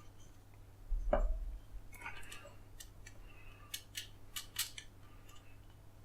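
Small screws, nuts and acrylic parts being handled during assembly. There is a dull bump about a second in, then light taps, then a quick run of sharp metallic clicks a little past the middle.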